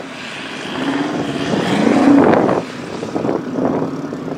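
A large engine revving. Its note climbs for about a second and a half, then drops off sharply just past the middle and settles back to a steadier run.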